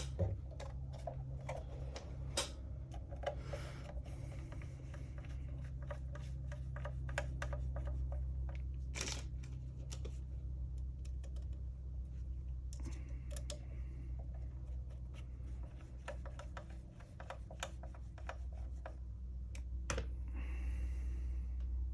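Scattered light clicks and ticks of small tools and 3D-printed plastic parts as small M2 screws are driven to fasten a cab frame to its base plate, over a steady low hum.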